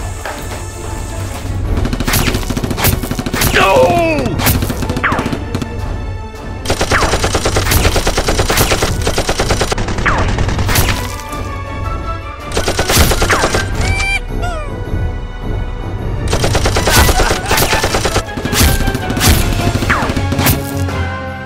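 Automatic-gunfire sound effects laid over toy blaster shooting: several long bursts of rapid shots, with scattered single shots between them. They play over background music with a steady bass.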